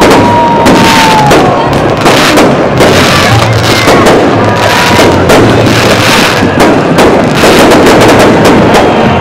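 Fireworks display: aerial shells bursting in rapid bangs and crackling, with a few long whistles gliding slightly down in pitch, one near the start and another about four seconds in.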